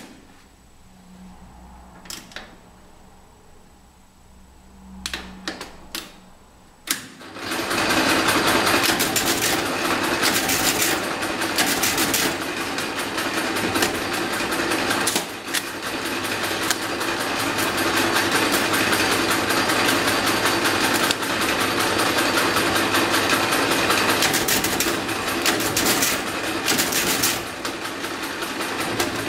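Millionaire direct-multiplication mechanical calculating machine: a few sharp clicks as number keys are set, then from about seven seconds a loud, continuous fast clatter of its gearing and carriage as it runs through multiplications.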